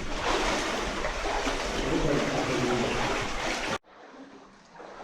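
Steady rushing, trickling water noise that cuts off abruptly about four seconds in, leaving a much quieter background.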